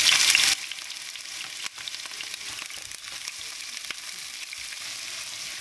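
Sliced onions frying in hot vegetable oil in a pan, sizzling loudly at first, then dropping suddenly to a quieter steady sizzle about half a second in, with small crackles as the slices are turned with tongs.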